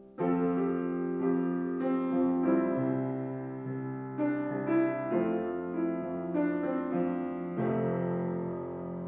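Fazioli grand piano played solo: a fading held chord gives way to a loud chord struck just after the start, followed by a flowing passage of chords and melody notes that change every half second or so.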